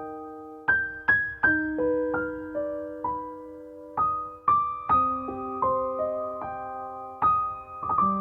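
Background music: a slow, gentle piano piece, single notes and chords struck and left to ring.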